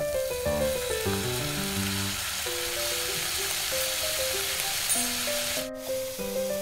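Hot pan sizzling as soy sauce is poured onto shredded chicken, onion and green chillies, a steady hiss that cuts off sharply near the end. Background music with a melody plays throughout.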